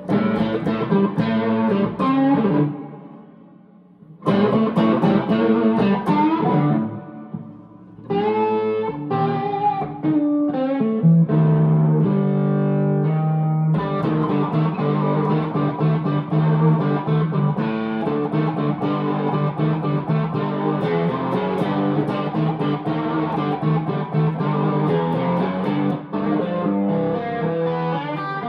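1961 Gibson SG Special electric guitar with P-90 pickups, played through an amplifier: picked notes and chords that ring out and fade twice early on, a few held low notes, then continuous busy playing from about halfway through.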